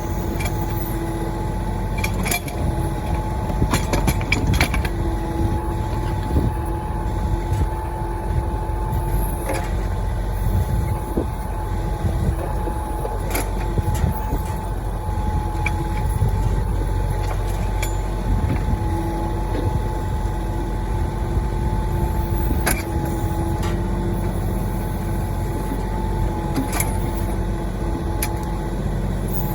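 Mahindra 1626 compact tractor's diesel engine running steadily while the backhoe works a stump, with a constant whine over the drone and scattered sharp knocks.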